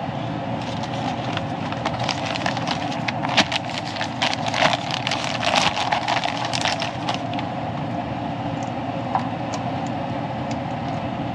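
A plastic bag crinkling and rustling as it is handled, a dense run of crackles that thins out about seven seconds in to a few scattered ticks. Under it runs a steady mechanical hum.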